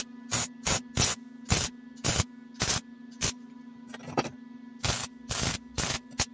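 MIG welder welding a steel exhaust pipe in a string of short bursts of arc, about a dozen in all, each well under a second, with a slightly longer one about five seconds in. A steady low hum runs underneath.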